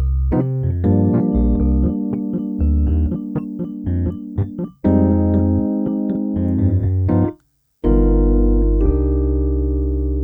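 Rhodes V8 Pro sampled electric piano playing a funky phrase of chords over bass notes, set to sound like an older, slightly detuned Rhodes. It breaks off briefly about seven and a half seconds in, then a held chord rings out with a slight wobble.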